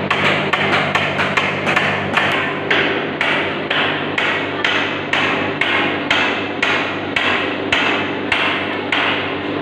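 Hammer driving nails into wood: a steady run of sharp strikes, about two a second, with a steady hum underneath.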